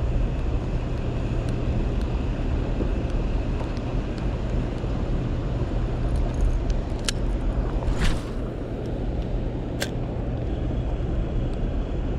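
Steady low rumble with a low hum underneath, and a few short sharp clicks around the middle.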